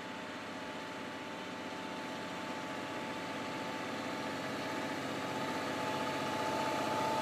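A heavy vehicle's engine running steadily with a constant whine, growing gradually louder.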